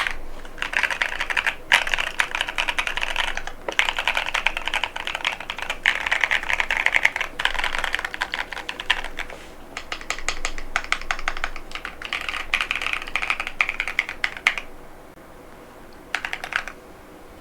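Fast typing on a Keychron Q6 Max mechanical keyboard with Durock White Lotus linear switches and PBT Cherry-profile keycaps: a dense run of keystroke clacks with brief pauses. It stops about fifteen seconds in, then comes one short last flurry of keystrokes.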